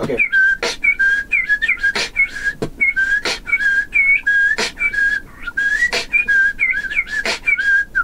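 Beatboxer's bird whistle: short chirping whistled notes, several a second, hopping between two pitches with little glides. It is laid over beatboxed percussion with a sharp snare-like hit about every second and a quarter.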